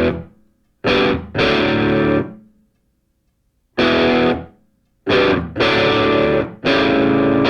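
Background music: distorted electric guitar playing loud chord stabs with short silent gaps between them.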